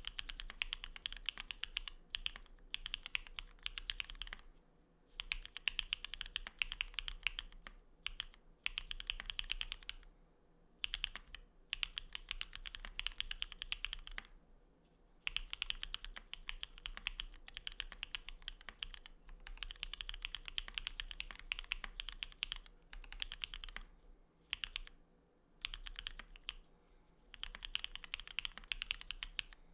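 Geon Works F1-88 mechanical keyboard with lubed Cherry Cream switches (MX black housings, NK cream stems), an aluminium plate and XMI ascii keycaps, typed on quickly. Keystrokes come in runs of a few seconds, broken by short pauses.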